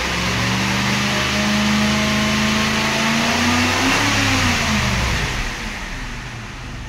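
2009 Cadillac DTS's 4.6-litre Northstar V8 revved with the car standing still: engine speed climbs steadily from about 2,000 to about 4,000 rpm over four seconds, then drops back quickly to a fast idle.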